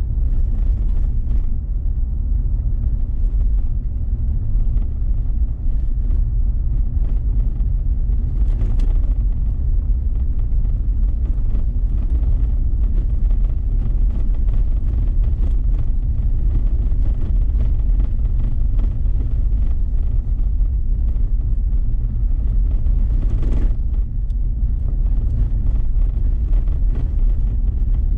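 Steady low rumble, with two brief swells of hiss, one about nine seconds in and one about two thirds of the way through.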